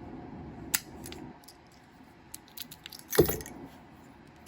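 An antique Master Lock No. 77 padlock and its key being handled: small metallic clicks and rattles, with one louder metal clack about three seconds in.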